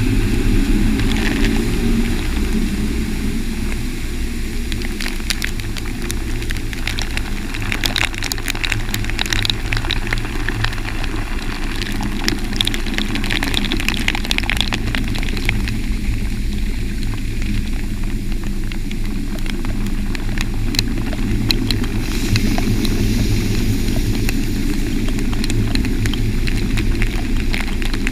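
Automatic drive-through car wash in operation: water spraying and rotating brushes working over the car. A steady low rumble runs under many sharp spatters and ticks of water hitting close by.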